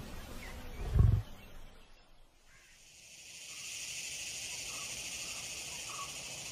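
Male Asiatic lion giving two deep grunts, one right at the start and a louder one about a second in. Then the calls stop, and a steady high hiss of background ambience builds up with a few faint chirps.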